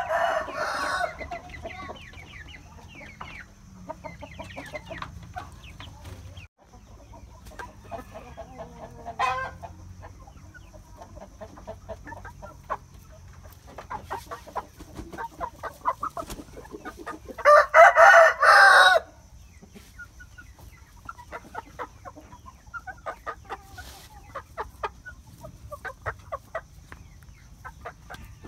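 Bangkok game chickens clucking in short scattered calls, with a loud rooster crow lasting about a second and a half roughly two-thirds of the way through.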